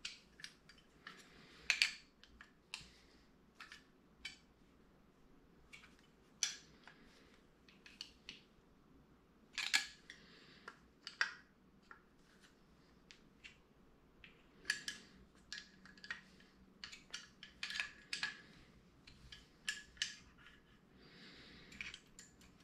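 Irregular clicks and light metallic taps of a screwdriver and small screws and parts against a Ford flathead V8 carburetor body as it is assembled by hand. The sharpest clicks come about two seconds in and again near ten seconds.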